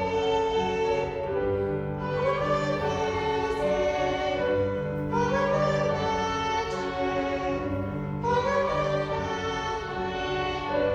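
Violins and piano playing a slow classical piece in long held notes, a new phrase swelling in about every three seconds.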